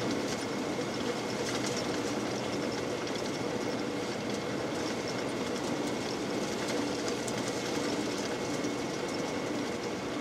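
Silage-harvesting machinery running steadily: a continuous mechanical drone and rattle with a faint, steady high whine over it.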